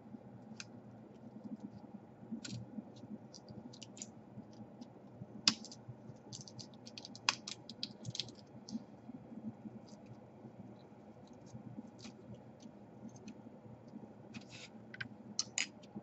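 Irregular small clicks and taps of fingers handling the open laptop's internal parts during disassembly, with a couple of sharper clicks in the middle and a quick cluster near the end.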